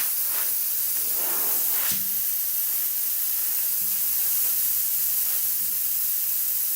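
Steady high hiss of air escaping from a car tire's puncture as a screw is worked out of the tread with pliers, with faint scraping and a click near two seconds in.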